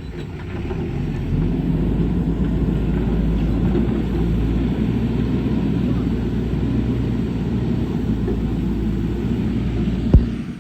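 Backhoe loader's diesel engine running steadily, with one sharp knock near the end.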